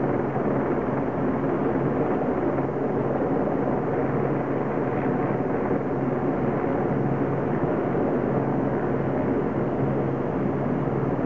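Medevac helicopter idling on the ground with its rotor turning: a steady turbine hum that holds one pitch throughout.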